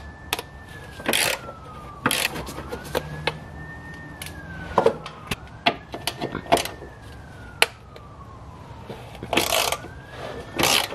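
A siren wailing in the distance, rising quickly and falling slowly about every two and a half seconds. Over it come sharp clicks and knocks from a hand tool working at a plastic cover.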